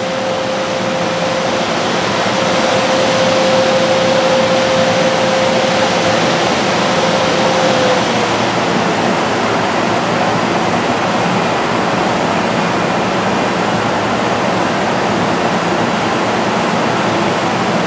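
Steady loud rushing of a standing MARC bilevel commuter train's rooftop air-conditioning and ventilation fans, with a steady hum tone that fades out about halfway through.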